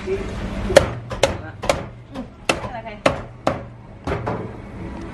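A heavy Chinese cleaver chopping a whole marinated goose on a thick round wooden chopping block: about seven sharp strikes at uneven intervals.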